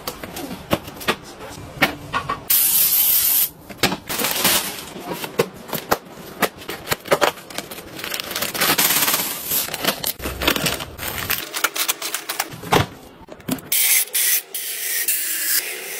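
A run of handling noises: plastic and cardboard rustling and clicking as food-storage bags are pulled from their box. Near the end comes a steady hiss of raw peanuts pouring into a clear plastic grain dispenser.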